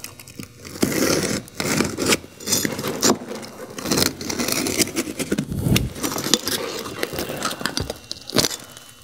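A knife is drawn repeatedly along a straight edge, cutting through an asphalt shingle in a series of scraping strokes, with the shingle rustling as it is handled.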